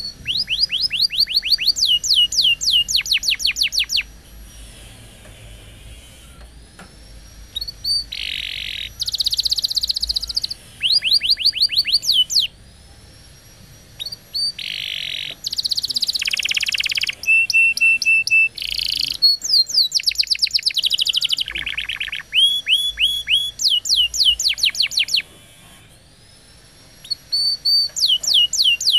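Canary singing in long phrases: fast trills of repeated high, downward-sweeping notes, buzzy rattles and steady rolls, broken by pauses of a second or two.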